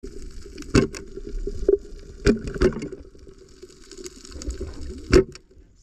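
Underwater sound heard through an action camera's waterproof housing on a night dive: a steady muffled rush and hiss, broken by several sharp knocks, the loudest about a second in and near the end.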